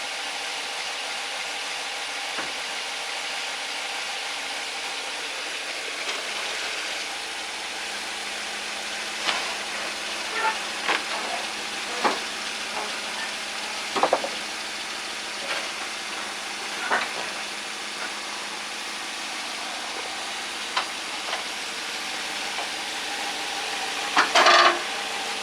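Chevy 5.3 V8 idling steadily at temperature, with the lifter tick from the DOD-deleted valvetrain just beginning to show. Several irregular sharp clicks and knocks come through the middle, and a louder rattling clank near the end.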